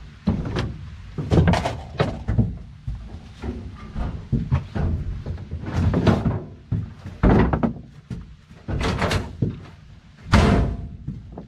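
Irregular thunks and knocks, a dozen or so, as someone fetches a tool out of sight. Some sound like a lid or door shutting, and the loudest comes near the end.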